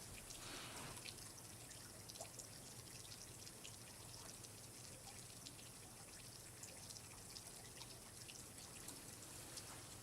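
Faint water dripping and trickling, with many small scattered drops over a steady quiet hiss.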